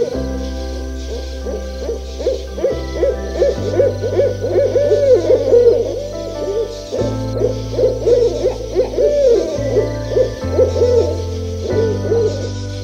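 An animal calling in a rapid series of short rising-and-falling notes, several a second, with a short pause about 6 s in and another near the end. Background music with a steady bass line that changes note every second or so runs beneath.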